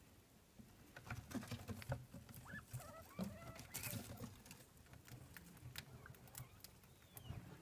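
Degus moving about in their cage: light irregular scrabbling and clicking, with a few short chirping squeaks about three seconds in and a couple of fainter ones near the end.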